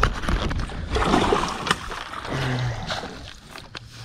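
Water splashing for about three seconds, starting suddenly: a hooked bass thrashing at the surface beside the boat.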